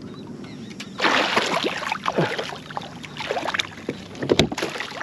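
A hooked redfish thrashing and splashing at the surface beside a kayak, with water slapping as it is brought to the net. The splashing picks up about a second in, and there is one sharp knock near the end.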